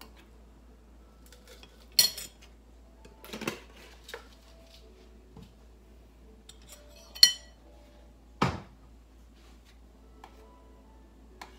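A utensil clinking and knocking against a stainless steel frying pan while soup is stirred: about six separate sharp clinks, the loudest two (about 2 and 7 seconds in) with a brief metallic ring, and a duller knock just after the second.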